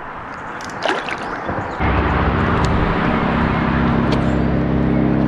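A boat motor starts about two seconds in and then runs steadily at one even pitch.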